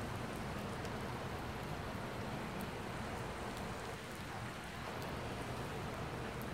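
Rain falling steadily, with a few faint drops ticking now and then.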